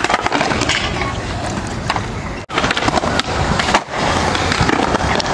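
Skateboard wheels rolling on smooth concrete, with scattered clacks from the board. The sound breaks off suddenly twice, about two and a half and nearly four seconds in.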